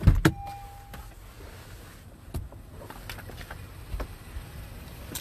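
Sharp knocks and clicks from a Honda Odyssey minivan's driver door and cabin as someone climbs out, two loud ones right at the start and a few lighter clicks later. A short steady electronic tone sounds from the van just after the first knocks.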